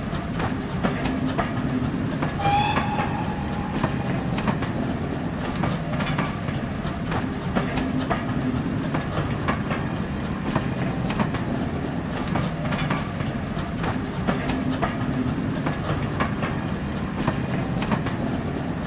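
Train running on the track: a steady rumble with scattered clicks of the wheels, and a short whistle about two and a half seconds in.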